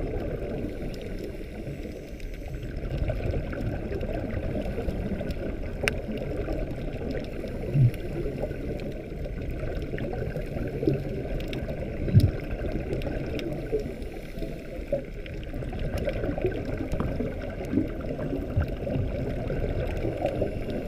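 Underwater sound picked up through a GoPro's waterproof housing: a steady, muffled low rumble of moving water with faint scattered clicks. Two louder low thumps come about a third and about halfway through.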